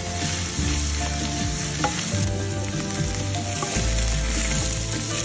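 Diced onions sizzling in hot oil in a pan, with a few clicks as chunks of potato are tipped in.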